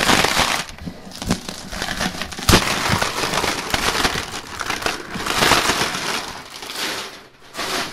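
Plastic shrink-wrap crinkling and crackling as it is pulled and torn off a cardboard box, in a dense run of crackles with a sharper snap about two and a half seconds in.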